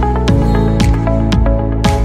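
Electronic background music with a steady beat, about two beats a second, over sustained synth tones.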